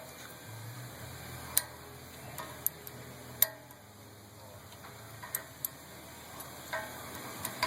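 Scattered sharp metallic clicks and taps, about seven of them at uneven intervals, as pliers work a cotter pin out of the castle nut on a front wheel hub's axle, over a faint steady low hum.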